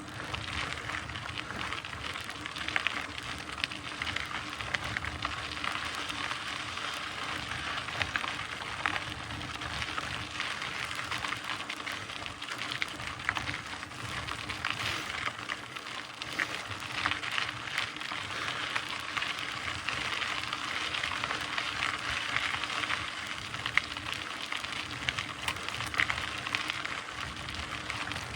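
Mountain bike tyres rolling over a loose dirt trail, a steady crackle and crunch with many small ticks of grit and stones.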